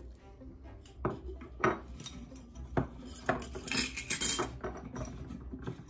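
A few sharp clinks and knocks of a small glass vanilla-extract bottle and its cap being handled around a stainless steel stand-mixer bowl, with a short scraping rustle about four seconds in.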